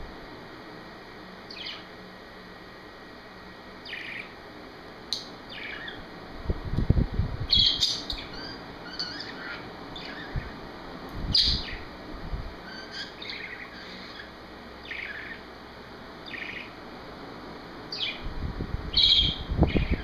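Budgerigar singing in short, scattered chirps and tweets. A fan blowing on the microphone adds low rumbling wind gusts a few times, the longest near the end.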